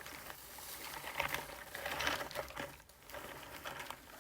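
Rustling and light scraping of packaging and small gift items being handled, in short uneven bursts, the loudest about one and two seconds in.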